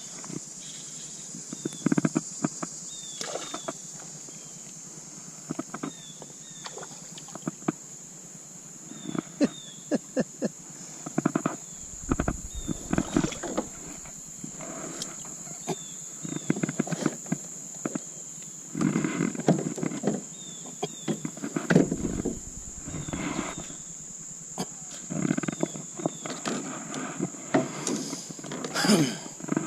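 Steady high-pitched insect drone, with short repeated chirps above it and scattered clicks, knocks and low rumbling bumps close by.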